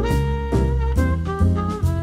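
Background music in a jazz style with horns, notes changing over a steady bass line.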